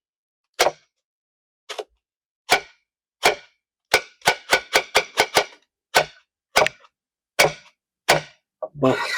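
Foley chopping sounds made to stand in for vegetables being cut: about fifteen sharp, separate chops, with a quick run of them around the middle. This is a heavier, more cinematic cut than real vegetables give.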